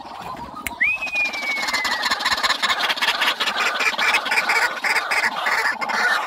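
White-breasted waterhen calling: a rapid string of repeated loud notes, after a single falling whistled note about a second in.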